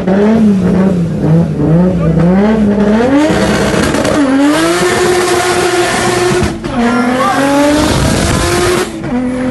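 Drag-race car engines revving up and down at the start line, then launching and accelerating hard, the engine note climbing and dropping at gear changes about 6.5 and 9 seconds in. A rushing noise runs over the run.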